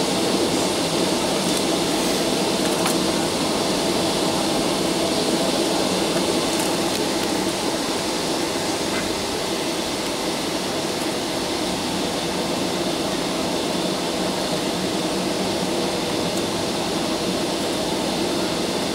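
Steady cabin noise inside a Boeing 757-200 taxiing: the jet engines at low taxi thrust and the air-conditioning running as an even hum and rush, with no rise or fall.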